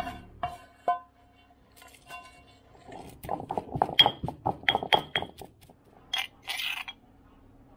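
Granite pestle pounding dried shrimp in a granite mortar: a quick run of strikes with sharp ringing clinks, then a metal spoon scraping around the stone bowl. Two ringing clinks come about a second before the pounding starts.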